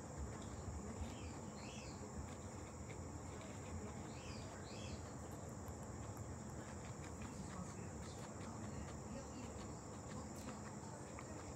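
A guinea pig chewing lettuce and red bell pepper, faint soft crunches, over a steady high-pitched hum with a few faint chirps.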